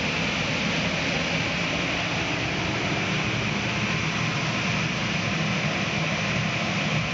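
Convective preheat blowers of a Vitronics Soltec Delta Max wave solder machine running steadily, a constant whooshing hum with a hiss in the upper range.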